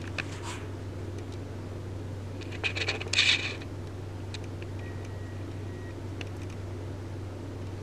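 Light metallic clinks and a scrape of small hard objects being handled, loudest in a brief cluster about three seconds in, over a steady low hum.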